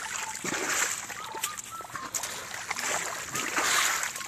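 Wet mud and water splashing in irregular bursts as a baby Asian elephant thrashes in a muddy puddle.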